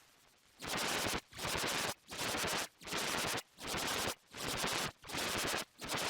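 Rapid rattling like machine-gun fire, chopped into short bursts about 0.7 s apart after a brief quiet start: a stuttered sound effect in a Sparta-style remix.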